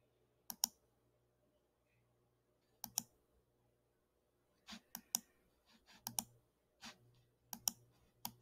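Computer mouse button clicks, about seven at irregular intervals, most heard as a quick pair of clicks.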